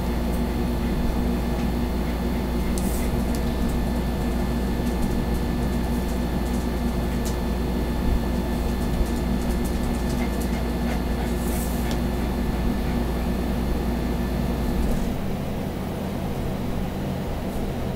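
Steady low machine hum with several fixed tones. Its deepest rumble drops away suddenly about fifteen seconds in.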